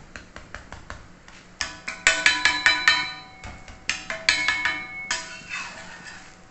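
Steel spatula tapping on a folded dosa and a cast-iron tawa: quick light taps about four a second, then from about two seconds in harder strikes that ring like metal on metal, with a second run about four seconds in.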